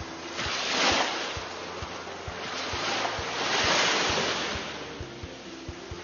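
Ocean waves surging and washing in, in two swells: one about a second in, and a longer, fuller one around four seconds in.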